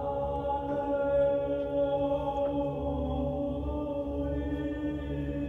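Choral music from the show's soundtrack: voices singing slow, long-held notes, like a chant.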